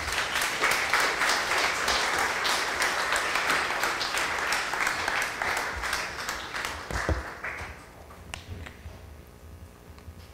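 Audience applauding, starting at once and dying away about eight seconds in.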